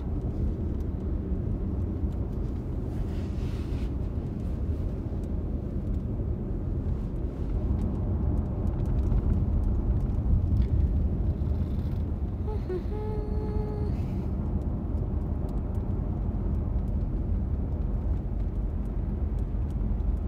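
Steady low rumble of a moving vehicle heard from inside the cabin, with no speech over it. A brief faint steady tone sounds about two-thirds of the way through.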